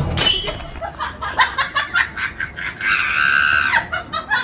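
A person snickering: a run of short, quick bursts of laughter, with a sudden sharp hit at the start and a held high-pitched note about three seconds in.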